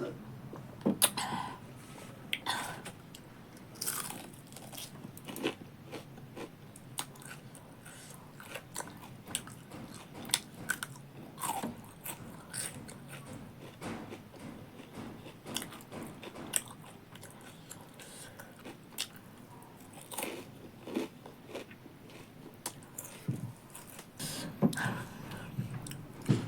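Close-up mouth sounds of someone biting and chewing crunchy food: irregular crisp crunches and clicks, with no talking.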